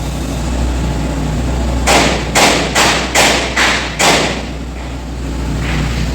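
Wire brush scrubbed over a weld on stainless steel pipe, cleaning the root pass: six quick brushing strokes, about two a second, over a steady low hum.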